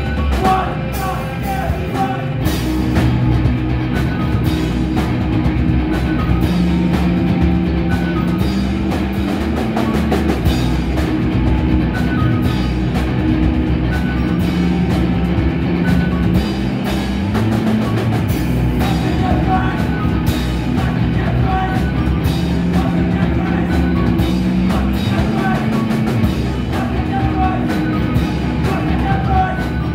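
Rock band playing live on electric guitars, electric bass and drum kit, loud and continuous with a steady drum beat.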